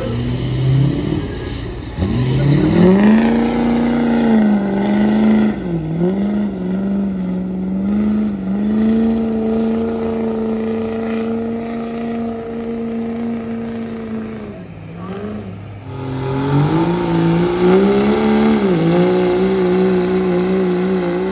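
Diesel pickup trucks at full throttle dragging a truck-pull weight-transfer sled. The engine winds up about two seconds in and holds a steady high pitch, sagging briefly now and then. It drops away near three-quarters through, and then an engine winds up again and holds.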